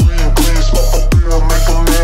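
Electronic background music with a heavy kick-drum beat and a steady deep bass under synth lines.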